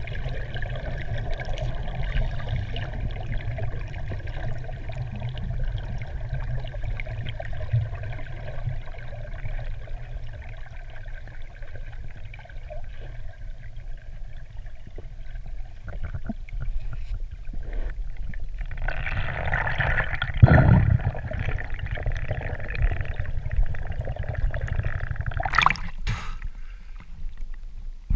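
Muffled underwater sound picked up by a camera in its housing: a steady low rumble with the wash of moving water. About two-thirds of the way through comes a louder rush of water noise with a heavy low thump.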